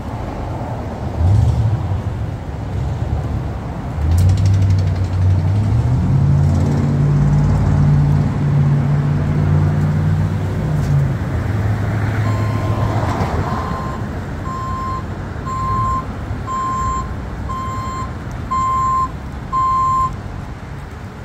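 Truck engine running, its pitch stepping up about halfway through, then dying away. A backup alarm follows, beeping about once a second, eight times.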